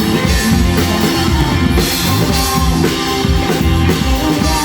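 Drum kit playing a steady rock beat along with a rock-style worship song, with guitar.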